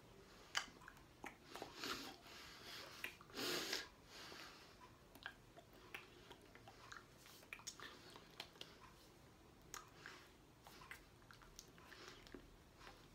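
Faint mouth sounds from a person signing: soft lip and tongue clicks and smacks, with a couple of short breaths, the loudest about three and a half seconds in, and light rustle of hands and clothing, in a small quiet room.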